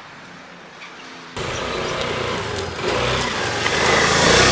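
Faint steady background, then about a second and a half in a sudden cut to street traffic noise with vehicle engines, growing louder near the end.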